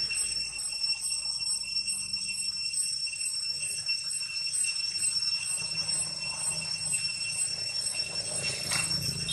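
A steady, high-pitched chorus of tropical insects such as cicadas, made of several held tones, the highest pulsing a little under twice a second. A single sharp click sounds near the end.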